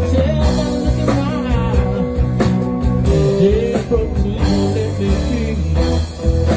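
Instrumental intro of a blues-rock song: a guitar playing bent, sliding notes over a steady bass line and drums.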